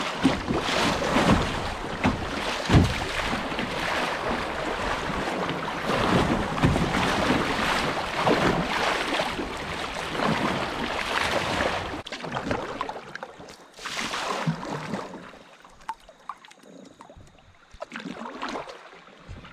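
Kayak moving down a swift river: water rushing and splashing against the hull, with repeated paddle strokes. About twelve seconds in it drops to calmer water, with only a few separate paddle splashes.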